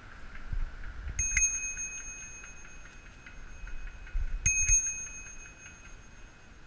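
Handlebar bicycle bell rung twice, about three seconds apart, each time a quick double ding whose high ring dies away slowly. Beneath it, a low rumble and knocks from the bike rolling over the paved path.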